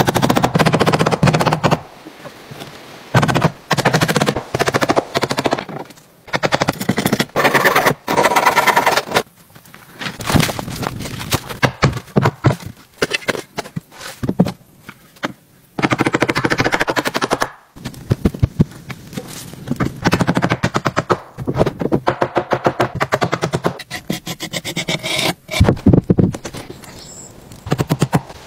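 Hammer and hand-tool strikes on timber in fast runs of sharp knocks, many a second. The runs come in bursts of a second or two with short quieter gaps between them.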